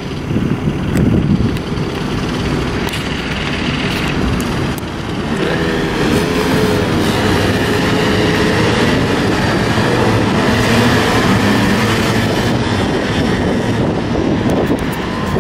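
A pack of street go-karts running their small engines, with wavering engine notes as they drive off together over steady city traffic noise.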